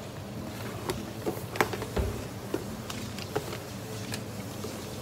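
Paperboard ice cream carrier box being folded shut and handled: scattered light taps and clicks, with one dull thump about two seconds in.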